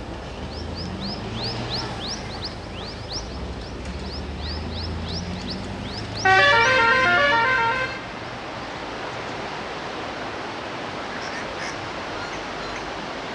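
A vehicle's musical horn plays a quick run of changing notes for under two seconds, about six seconds in, over a vehicle engine running steadily. Before it, a string of short high falling chirps repeats about two to three times a second.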